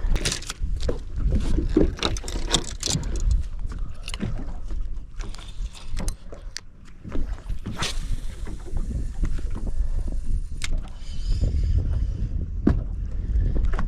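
Wind rumbling on the microphone aboard a boat, with scattered knocks and clicks from handling gear and moving about on the deck. A faint high steady tone sounds for a couple of seconds about two-thirds of the way through.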